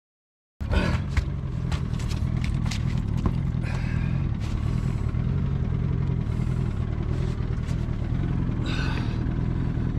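Boat engine running steadily at low speed, with clicks, clatter and scraping as a trout is handled in a rubber landing net on the deck. The sound starts abruptly about half a second in.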